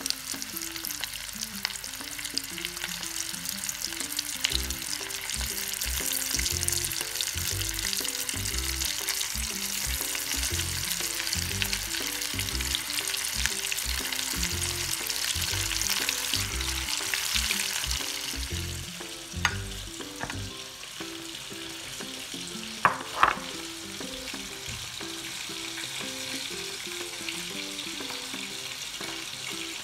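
Breadcrumb-coated Indian anchovies deep-frying in hot oil in a wok: dense, steady sizzling and crackling that dies down about two-thirds of the way through, followed by a few sharp clicks. Background music plays underneath.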